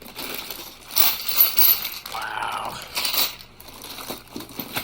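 Metal sockets from a mechanic's tool set clinking and rattling irregularly as they are handled and lifted out of the box.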